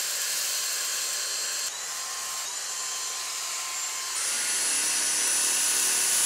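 Dyson V6 Total Clean cordless vacuum cleaner running steadily with a high whine while picking up dirt from a carpet. The pitch steps down slightly about 1.7 s in and jumps higher about 4 s in, where a lower hum joins it.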